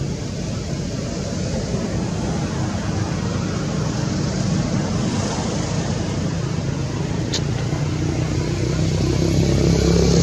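A motor vehicle's engine running, with a steady low hum over a noisy background that grows louder near the end. A brief high chirp about seven seconds in.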